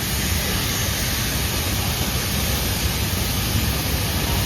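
Steady rumble and hiss of a moving excursion train heard from aboard, with no changes or distinct events.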